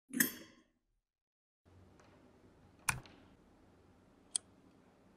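A short clatter, then after a pause three sharp clicks over a faint hiss: handling of the clip and rod that hang a rusty padlock in a glass tank of water for electrolysis.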